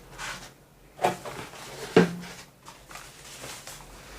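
Keyboard packaging handled in its cardboard box: light rustling and scraping, with two sharp knocks about a second in and two seconds in, the second the loudest.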